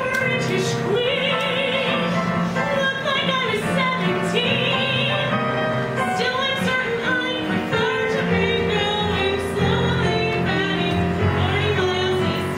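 A woman singing a musical-theatre song solo with vibrato over sustained accompaniment chords; a lower bass note comes in about eight seconds in.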